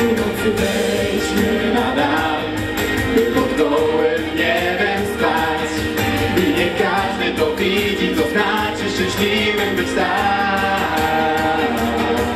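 A group of four young singers singing together into hand-held microphones.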